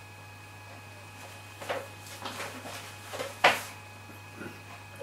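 A person drinking beer from a glass: a few short sips, swallows and mouth sounds, the loudest about three and a half seconds in.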